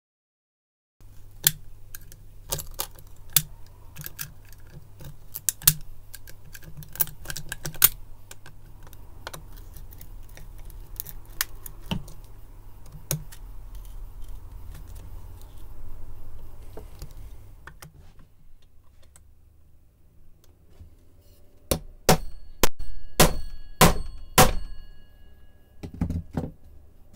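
Metal hand tool clicking and scraping in the rounded bolt heads of a Xiaomi M365 e-scooter deck, with sharp metallic clinks scattered throughout. After a quieter pause past the middle comes a run of louder, ringing metal taps.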